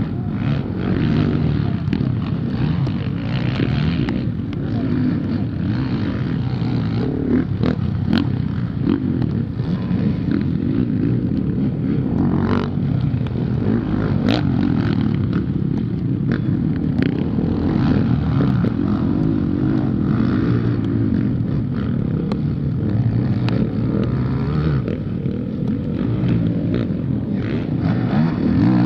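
Motocross bike engines racing on a dirt track, revving up and down continuously as the riders accelerate and shift, with a few sharp ticks here and there.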